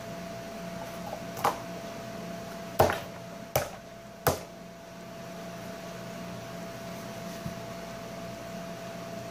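Four sharp clicking pops, about a second apart, as a hand pokes and presses into a puddle of slime on a table. A steady appliance hum runs underneath.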